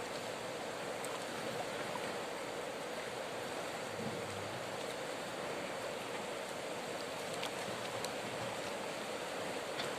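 Steady rush of flowing river water, with a few faint ticks in the second half.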